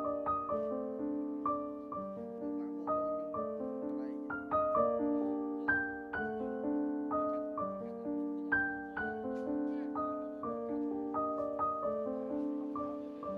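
Background music: a gentle piano melody, its notes struck about twice a second and fading after each strike.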